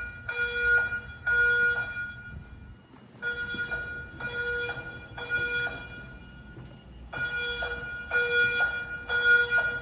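EST3 voice-evacuation fire alarm speakers sounding the temporal-3 evacuation tone. Each group has three half-second steady tones and is followed by a pause. This is the alert signal that comes before the recorded evacuation message.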